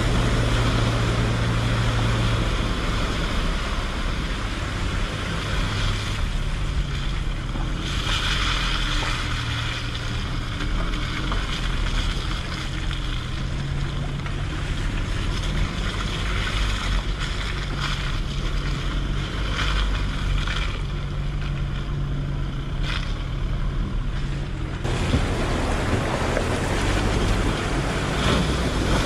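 Toyota Hilux's 2.8-litre four-cylinder turbodiesel engine running under load, its low note stepping up and down, as the pickup drives through floodwater and muddy ruts. Water rushes and splashes under the tyres at the start, gives way to a quieter stretch of engine sound, and comes back strongly about three-quarters of the way through.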